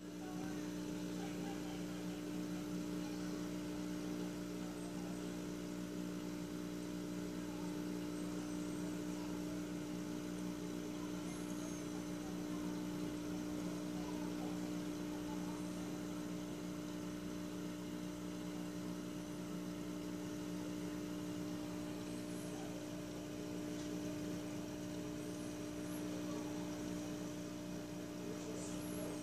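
Aquarium equipment humming steadily at an unchanging pitch, an electrical hum with two clear tones.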